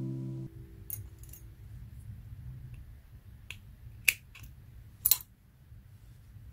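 Small scissors snipping crochet yarn: a few sharp clicks, the two loudest about four and five seconds in. A guitar music tail stops about half a second in.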